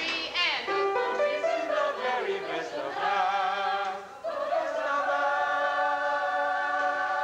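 A musical-theatre cast singing together in harmony. After a short break about four seconds in, the voices hold one long chord.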